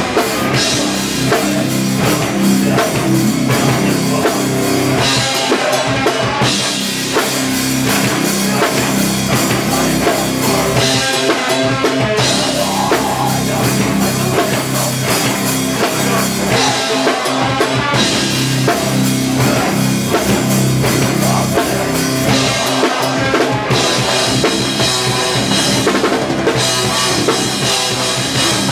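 Hardcore punk band playing live and loud: distorted electric guitars, bass and a drum kit with heavy bass drum, closely recorded, working through a riff that repeats about every six seconds.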